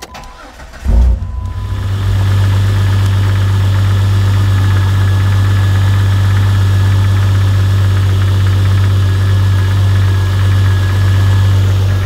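2003 Jeep Grand Cherokee engine starting with a brief crank about a second in, catching at once and then idling steadily. It is the first start after an intermittent no-start with no ECM communication, cured for now by reseating the ECM harness connector.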